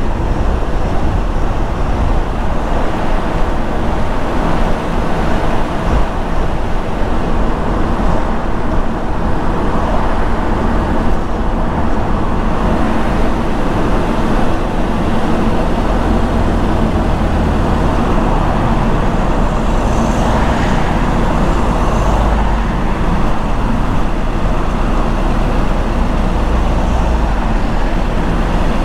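Steady road noise of a car driving: a continuous rush of tyre and road noise over a low rumble, holding an even level throughout.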